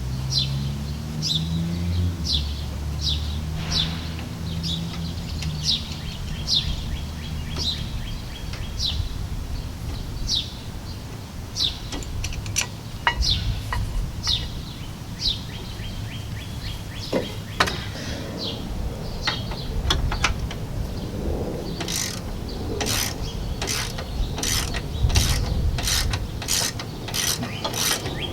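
A ratchet wrench clicking in a fast, even run, about two to three clicks a second, starting near the end while a rear brake caliper bolt is turned out. Before that, a bird gives a short falling chirp over and over.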